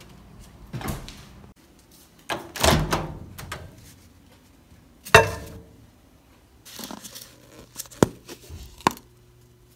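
Kitchen handling sounds: several knocks and thunks as a paper coffee cup is moved about, with the loudest sharp thunk about five seconds in as the microwave door is shut. A steady low hum follows from about seven seconds on, with two sharp clicks.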